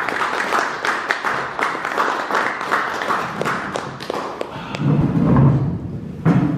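Audience applause, a dense patter of clapping, fading after about four seconds. A low rumbling sound follows, with a sharp thud near the end.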